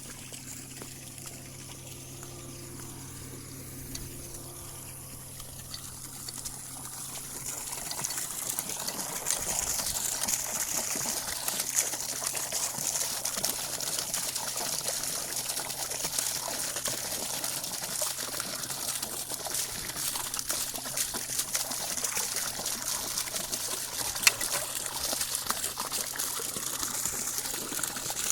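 Water running steadily, growing louder about seven seconds in, with a low steady hum underneath.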